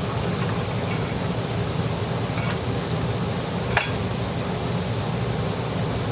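Steady mechanical hum of room machinery such as a fan. Over it come a few light clicks and one sharp clink of hard objects being handled, a little before four seconds in.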